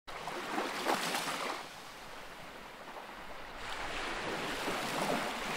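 Ocean waves washing in: a swell of surf about a second in, a quieter lull, then the wash building again toward the end.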